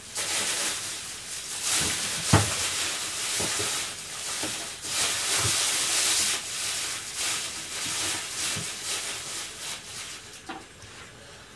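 Food sizzling on the stove: an uneven hiss that rises and falls, with a few light knocks of kitchenware, the sharpest about two seconds in.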